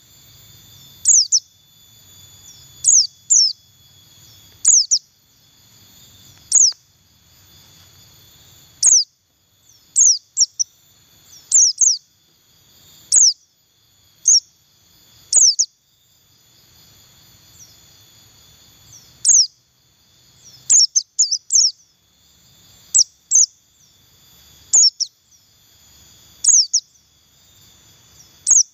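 White-eye (pleci buxtoni) giving short, sharp, falling chirps, one or two at a time about every one to two seconds, with a quick run of several about two-thirds of the way through. A faint steady high tone runs underneath.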